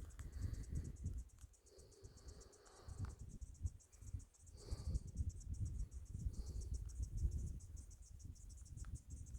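An insect trills steadily in fast, evenly spaced high-pitched pulses, over a louder, uneven low rumble.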